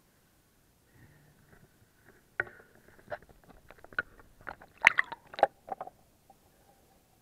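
Water splashing and sloshing against an action camera at the water surface. After a quiet first second comes a run of irregular sharp splashes and knocks, loudest about five seconds in.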